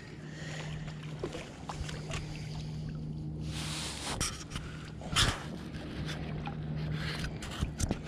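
A small motor hums steadily and drops out near the end, with a brief hiss a little past three seconds in and a few sharp knocks, the loudest just after five seconds.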